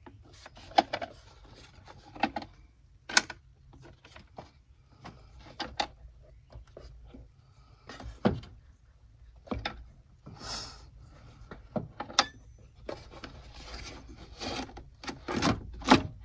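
Plastic air filter box of a Ford Focus being worked down into place in the engine bay by hand: irregular knocks, clicks and rubbing of hard plastic against plastic and the intake hose, with a few sharper knocks.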